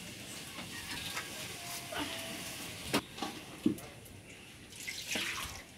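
Cooking utensils being handled: scattered sharp clinks and knocks of a metal pan and spice containers, the loudest about three seconds in, over a faint steady hiss.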